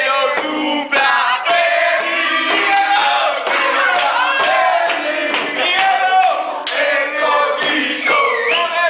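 A group of young people loudly chant-singing a birthday song together in unison, more shouted than sung.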